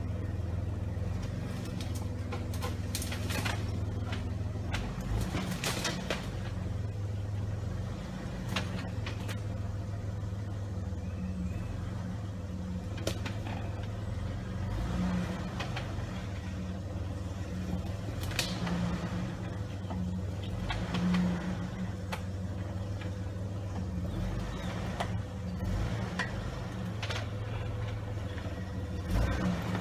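Jeep Wrangler engine running steadily at low revs as it crawls over rocks, with occasional sharp clicks and knocks along the way.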